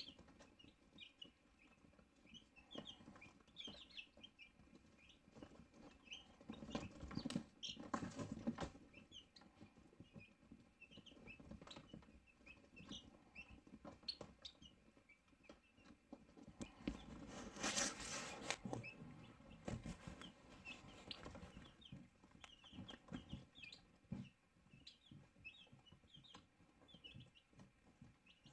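Cheonggye chickens giving soft, frequent short chirps and clucks, with rustling now and then and one louder scuffle a little past halfway.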